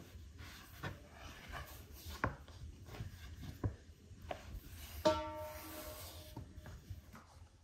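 Cooking work sounds: scattered light knocks and scraping, then one sharp clank about five seconds in that rings on for about a second.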